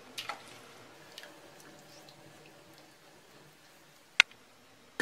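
Chicken wings lowered into a steel pot of hot broth with a few small soft splashes, then a single sharp tap about four seconds in.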